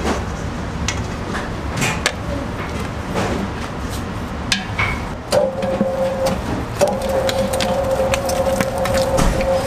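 Commercial spiral dough mixer running, its hook turning and slapping a heavy dough in the steel bowl, with a steady low rumble and scattered clanks and knocks. About halfway through, a steady machine whine sets in and holds.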